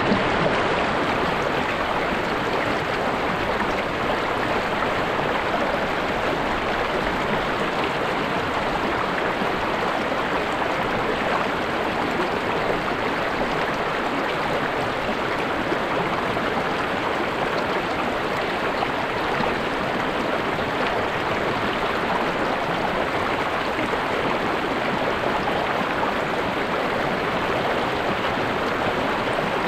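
River or stream water running and splashing over rocks, a steady even rush with no breaks.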